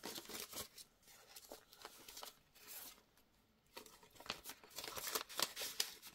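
Banknotes and a clear plastic binder pouch rustling and crinkling as the notes are handled and slid into the pouch. The rustles come at the start, fade in the middle, and pick up again in the second half.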